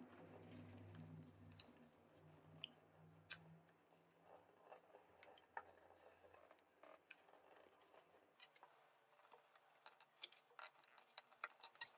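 Faint, sparse crinkles and soft clicks of a sheet of coloured paper being folded and creased by hand into an origami canoe.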